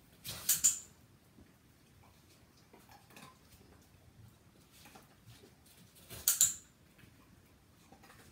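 Dog-training clicker clicked twice, each a sharp double click (press and release), the first about half a second in and the second about six seconds later: the marker for the dog's correct response.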